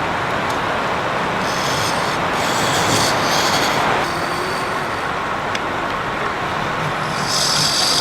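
Wood lathe running with a turning tool cutting the spinning wood: a steady machine noise, with stretches of hissing scraping where the tool bites, a couple of seconds in and again near the end.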